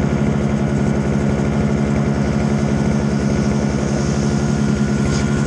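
Toro single-stage snowblower engine running steadily at an even speed, with a fast regular firing pulse.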